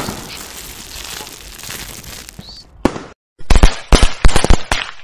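Aluminium reacting violently with liquid bromine: a steady fizzing crackle. From about three and a half seconds in comes a rapid series of loud, sharp pops and cracks as the burning metal throws off sparks.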